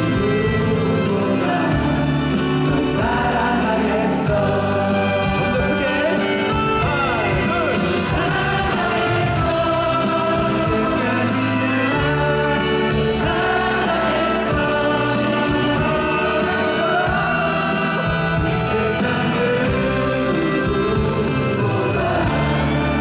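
A group of men singing a song together into microphones, over live band accompaniment with held chords and light cymbals.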